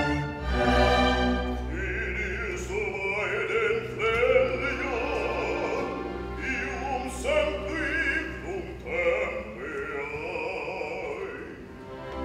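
Operatic bass voice singing a slow German line in short phrases with vibrato, over a sustained orchestral accompaniment.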